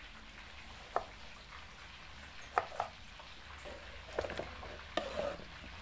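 Kitchen knife slicing tomatoes into rounds on a wooden cutting board: several separate, uneven taps of the blade on the board, then the slices scraped off the board into a plastic bowl near the end. Under it, a faint steady sizzle of fish frying in hot oil.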